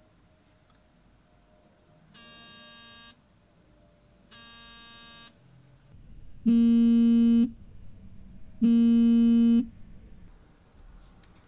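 Smartphone's incoming-call alert, a steady pitched tone in one-second pulses. The first two pulses are heard faintly through the air; the next two are much louder and fuller in the low end, picked up by a contact microphone standing on the floor beside the phone.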